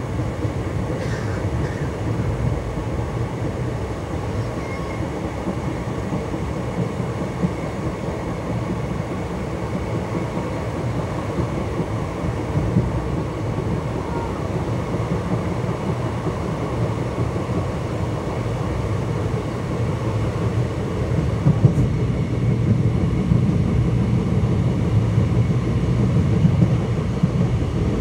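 Indian Railways ICF passenger coach running over the track: a steady rumble of wheels on rail that grows louder over the last few seconds, with a few sharper knocks near the end.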